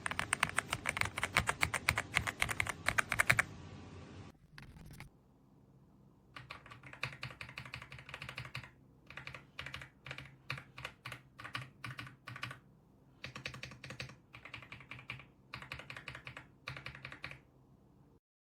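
Typing on an AULA F75 mechanical keyboard: a fast, continuous run of key clicks for the first three or four seconds. After a short pause come bursts of typing separated by brief breaks, and the sound stops abruptly near the end.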